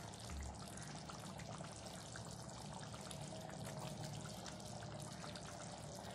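Prawn and potato curry bubbling in a pan on the stove: a faint, steady run of small pops and blips from the simmering sauce.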